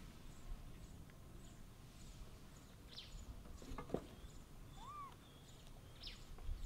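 Quiet outdoor background with a low rumble. A few brief high chirps come about three and six seconds in, and a short rising-then-falling call about five seconds in.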